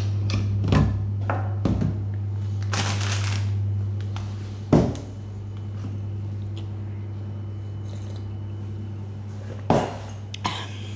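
A steady low hum with scattered knocks, clicks and brief rustles from things being handled. The sharpest knock comes about five seconds in, and two more clatter near the end.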